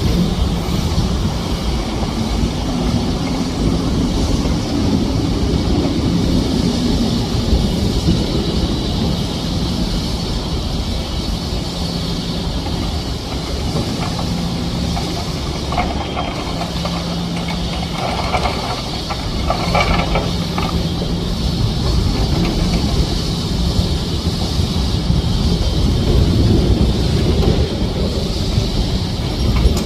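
Excavator diesel engines running steadily with a constant drone and hiss. There are bursts of metallic clanking about halfway through and again a few seconds later, as the machines work the rock.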